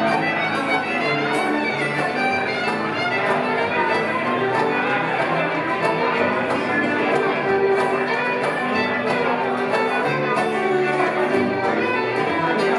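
Live acoustic bluegrass band playing an instrumental passage without singing: fiddle, five-string banjo, acoustic guitar and dobro together at a steady level.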